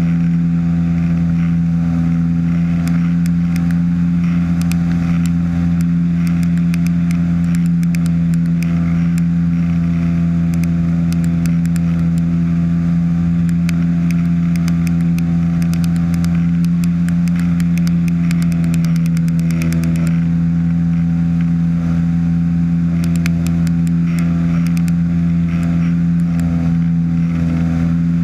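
Ultralight trike's engine and propeller droning steadily in cruise flight, with wind rushing past the microphone and scattered faint crackles.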